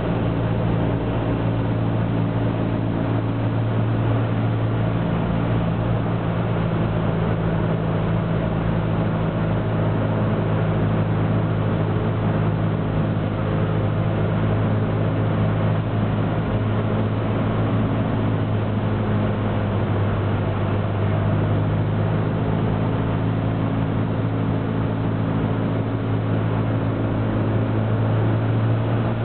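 Cessna 172's piston engine and propeller running steadily at reduced power on final approach, heard inside the cockpit with airflow noise. The engine note shifts slightly in pitch a few times.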